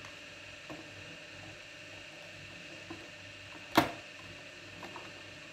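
A few faint handling clicks, then one sharp click a little under four seconds in as the clear ribbed shade is fitted onto the lamp's bulb holder.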